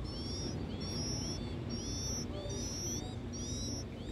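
Nestlings begging with high, thin peeps repeated about two to three times a second, over a steady low rumble.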